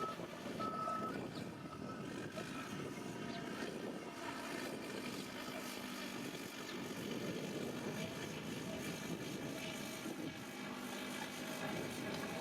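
Heavy earthmoving machinery, such as a bulldozer, with its diesel engine running steadily. A reversing alarm gives one last beep about a second in.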